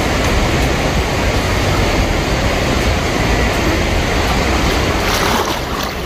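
Water splashing and rushing in a shallow stream as a child swims through it, a steady churning noise, with a brighter, louder splash about five seconds in.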